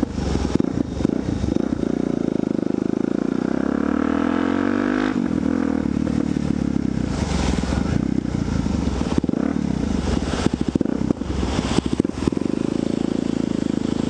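Suzuki DR-Z single-cylinder motorcycle engine running under way, its pitch climbing for about two seconds a few seconds in, then dropping suddenly before it runs on steadily.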